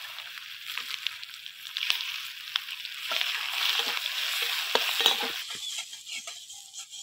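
Sliced onion sizzling in hot oil with panch phoron in a metal kadai, stirred with a metal spatula that scrapes and clicks against the pan. The sizzle fades near the end.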